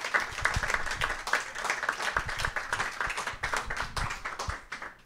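Audience applauding: many hands clapping quickly and densely, fading out near the end.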